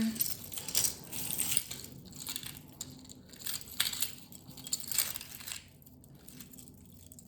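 Pieces of costume jewelry, including plastic bangles and beaded necklaces, clicking and rattling against each other as they are handled and sorted through. The clatter is busy and irregular for about five seconds, then fades to softer handling.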